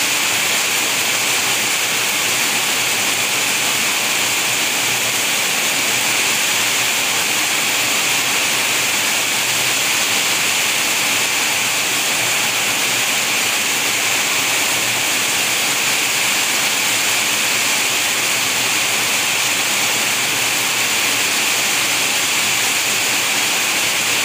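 Steady heavy rain falling, a dense even hiss that does not change in strength.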